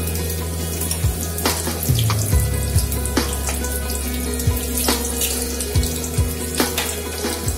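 Battered vegetable pakoras deep-frying in hot oil: a steady hiss like running water, with scattered sharp ticks.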